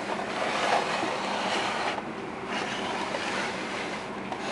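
Large plastic toy castle playset being turned around on a tabletop, its base scraping across the surface in a steady noise with a brief lull about two seconds in.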